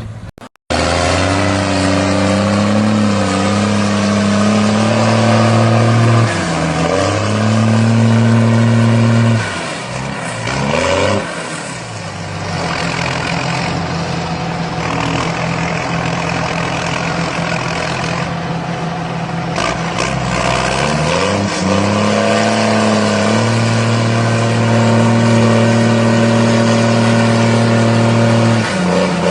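Tractor engine running steadily, its pitch dropping and climbing back about three times as the engine speed changes.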